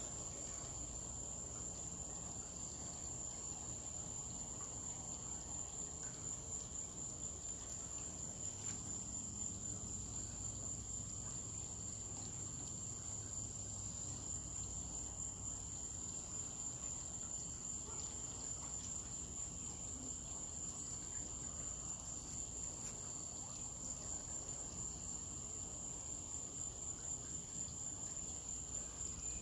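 Crickets chirping in a steady, high-pitched chorus that runs on without a break.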